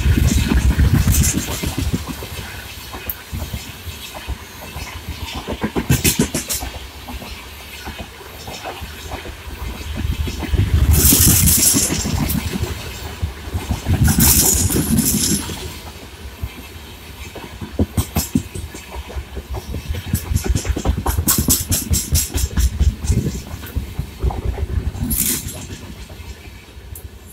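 Passenger coaches of an express train rolling past at moderate speed, the wheels clattering and knocking over the rail joints in uneven runs. Twice around the middle there is a loud burst of hiss.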